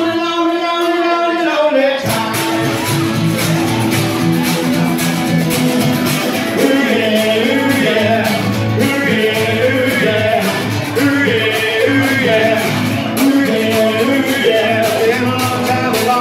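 Live band playing an upbeat rock-and-roll number on acoustic guitar with percussion and a male singer. The bass drops out for the first two seconds and the full band comes back in about two seconds in.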